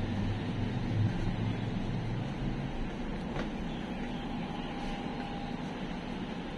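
Steady city street background noise, with a low hum that fades out about two and a half seconds in, and a faint click a little later.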